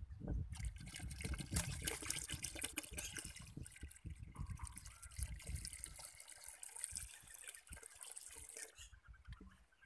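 Liquid pouring from a plastic bottle into a plastic bucket of liquid, a splashing pour that starts about half a second in and dies away near the end.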